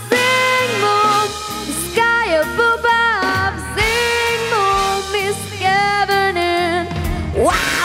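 A young girl singing solo into a microphone over an instrumental backing track with a stepping bass line. Her voice slides sharply up in pitch near the end.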